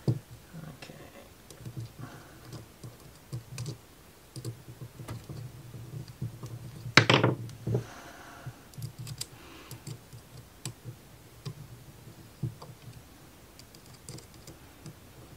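Irregular small clicks and taps of thin laser-cut plywood model parts being handled and fitted together on the axis, with one louder, brief clatter about seven seconds in.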